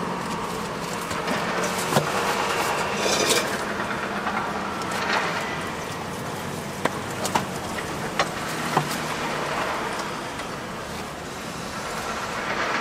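Steady background hiss and rumble, with a handful of sharp ticks, most of them bunched between about seven and nine seconds in.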